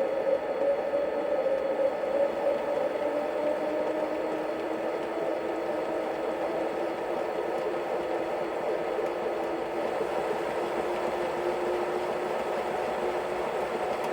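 LGB 27402 RhB Crocodile G-scale model locomotive running under power, its factory-fitted sound module playing the electric locomotive's running sound: a steady hum whose pitch drifts slightly.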